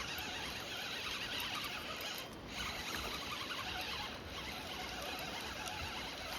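Fishing reel being cranked to retrieve line, a steady whirring with two brief pauses near the middle.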